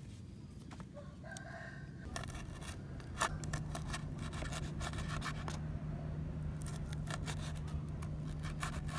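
A rooster crows briefly about a second in, among sharp clicks and scrapes from food being handled. A low steady hum comes in about three seconds in and runs on underneath.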